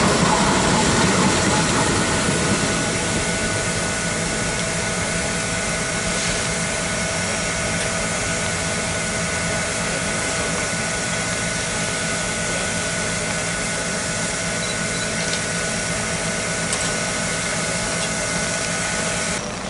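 Frisco 1630, a 2-10-0 steam locomotive, standing with a steady hiss of escaping steam and a steady high whine from its running machinery. Electric interurban cars roll past over the first two or three seconds and fade out.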